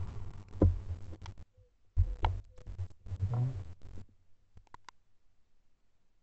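Faint, intermittent handling and rustling noise with a few small clicks, fading to near quiet for the last couple of seconds.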